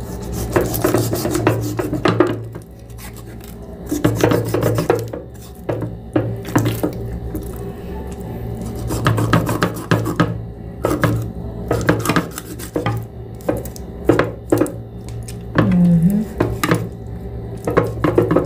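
A knife and dishes clattering, with many irregular sharp knocks and scraping sounds, as a whole chicken is hacked and pulled apart into pieces.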